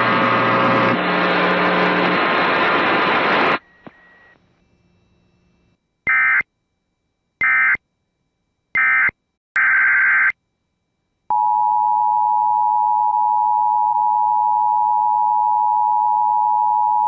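Loud hiss-like noise for about three and a half seconds. After a short quiet gap come three short, evenly spaced bursts of EAS/SAME digital data tones, the end-of-message code, and then one longer burst. About a second later the steady two-tone EAS attention signal starts, announcing the next alert.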